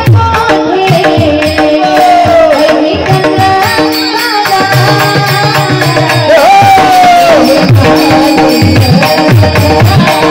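Marathi devotional song: a woman's voice singing gliding melodic phrases over steady sustained accompanying notes and a tabla rhythm.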